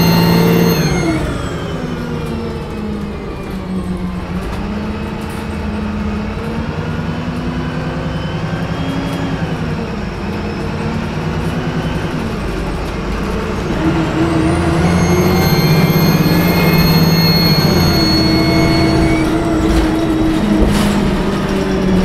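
Turbocharged diesel engine of a VDL SB200 Wright Pulsar 2 single-deck bus, heard from inside the saloon. A high turbo whine winds down over the first couple of seconds and the engine runs lower for a while. About two-thirds through, the whine rises again under acceleration and falls away once more, with a knock near the end.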